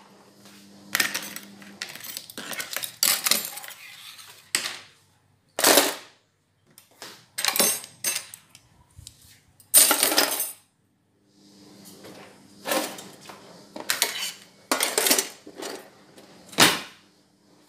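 Dishes and kitchen utensils clattering as they are picked up and set down: a string of irregular sharp clinks and knocks, some ringing briefly.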